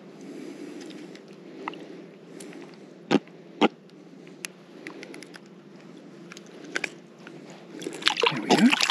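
Fishing pliers working a popper's hooks out of a small fish's mouth in shallow water: light metal clicks and scrapes, with two sharp clicks about three seconds in. Near the end comes splashing as the fish kicks in the water.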